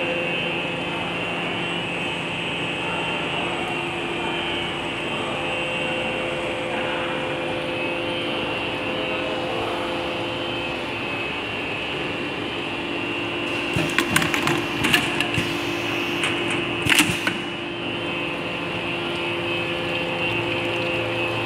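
Solder wire extrusion machine running with a steady hum made of several held tones. About two-thirds of the way through, a short cluster of sharp clicks and knocks stands out above the hum.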